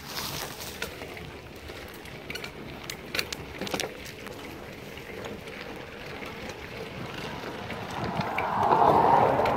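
Mountain bike rolling over a dirt trail: tyre noise on dirt and wind on the microphone, with scattered clicks and rattles from the bike over bumps. A louder rushing noise builds near the end.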